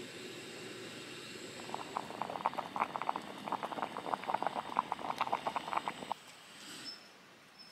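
Water boiling in a pot: rapid, irregular bubbling pops that stop abruptly about six seconds in.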